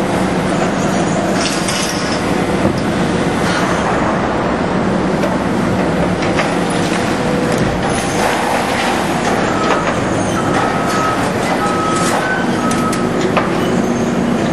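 Heavy demolition machinery running steadily, with metal and concrete debris clanking and scraping as the structure is torn down. A vehicle's reversing alarm starts beeping about two-thirds of the way through.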